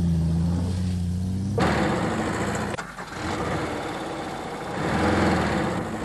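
A motor vehicle engine running with a steady low hum, then growing louder and rougher about one and a half seconds in, as if revving or pulling away.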